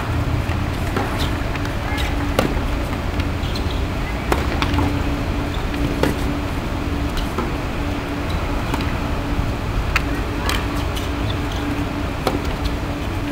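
Tennis rally on a hard court: the ball is struck back and forth with racquets, sharp pops every second or two, over a steady low background rumble.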